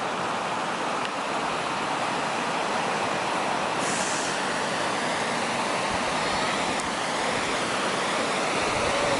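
Rushing mountain river water: a steady, even rush with no breaks.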